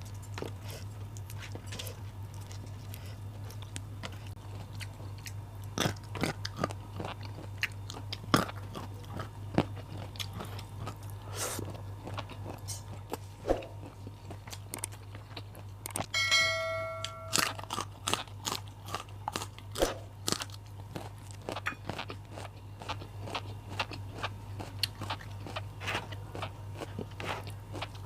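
Close-up crunching and chewing of raw vegetables such as bitter melon, petai and green chilies, with many crisp bites and mouth sounds over a steady low hum. About sixteen seconds in, a brief pitched ringing tone sounds for about a second.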